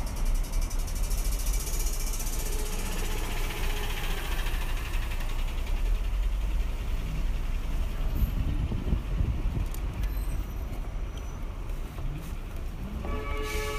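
Street traffic heard up close from a moving e-bike: steady low engine rumble and road noise as a city bus and a pickup truck pass alongside. A vehicle horn starts sounding near the end.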